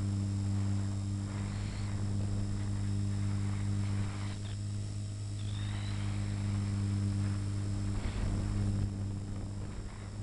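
A 450-size RC helicopter in flight, heard from its onboard camera: a steady low hum from the rotor and motor, with a little wind noise.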